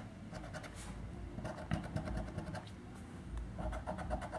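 A coin scraping the silver latex coating off a paper scratch-off lottery card: quiet, quick, repeated scratching strokes.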